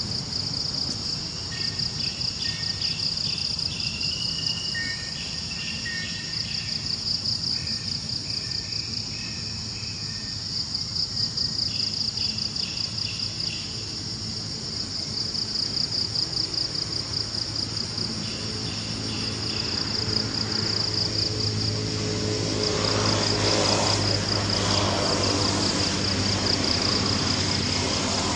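Insects keep up a steady, rapidly pulsing high-pitched chorus, with short bursts of higher chirping calls breaking in several times. In the last third a broad rushing noise with a low hum swells up underneath.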